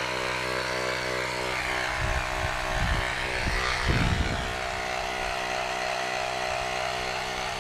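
Hamron battery-powered portable tyre inflator's electric compressor running steadily while inflating a swim armband, with a few low bumps of handling in the middle.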